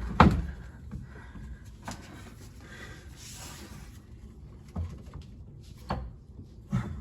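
Rear suspension work on a car: one loud metallic clunk just after the start, then quiet handling noise and a few lighter knocks, as a coil spring and suspension parts are moved and set in place.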